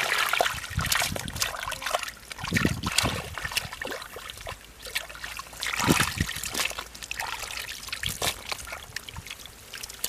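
Hands scooping and splashing through shallow muddy water and soft wet mud: irregular sloshes, drips and trickles, with a few louder splashes, the biggest about six seconds in.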